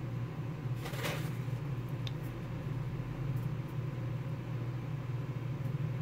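A page of a paper programme booklet turning, with a brief rustle of paper about a second in, over a steady low hum.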